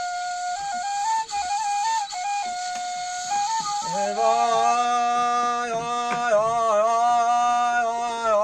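A wooden end-blown flute plays a short melody of stepping notes, with audible breath. About four seconds in, a man's voice comes in singing a long, wavering held note over it.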